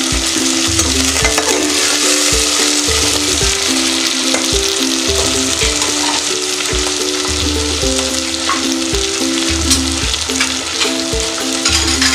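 Sliced onions frying in hot mustard oil in a metal pot, a steady sizzling hiss.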